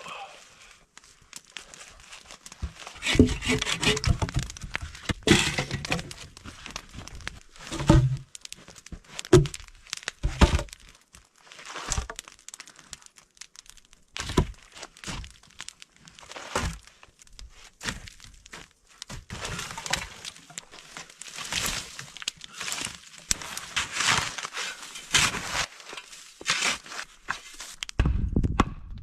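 Irregular snapping, cracking and thudding of sticks and branches being broken and handled, with crunching in between.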